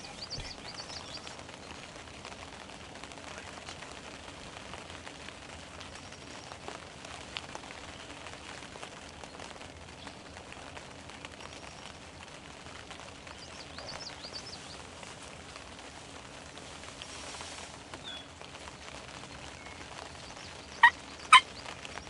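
Steady outdoor hiss with a few faint songbird chirps; near the end two loud, sharp, very short turkey calls about half a second apart.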